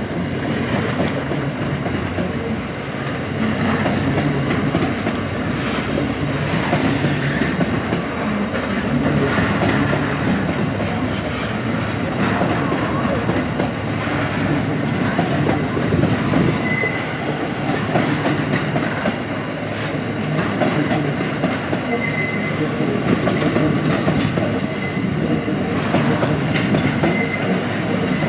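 Aurizon coal train's hopper wagons rolling past, a steady rumble and clatter of steel wheels on the rails. Three brief high wheel squeals are heard in the second half.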